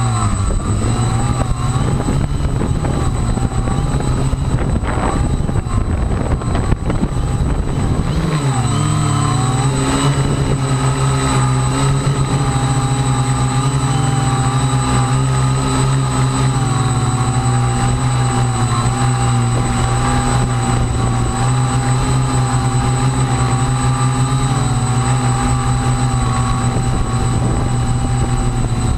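Electric motors and propellers of a radio-controlled aircraft running as a steady pitched whine, which dips and recovers in pitch about eight to nine seconds in and then holds steady. Wind buffets the microphone during the first eight seconds or so.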